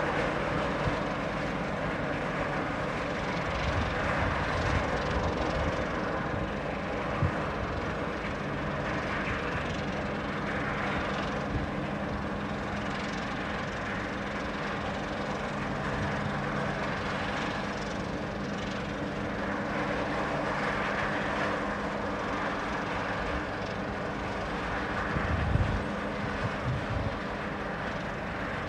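Steady drone of the research vessel Yashio's engines as the ship turns in place, with a held low hum throughout. A few brief low thumps come near the end.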